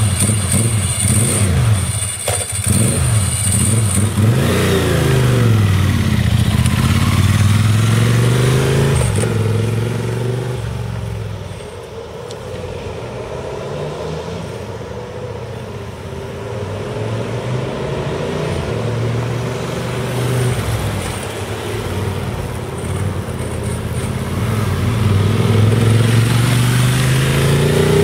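Ducati 916's 90-degree V-twin engine idling, then revving as the motorcycle pulls away and rides around, its pitch rising and falling with the throttle. It grows fainter partway through and louder again with rising revs near the end.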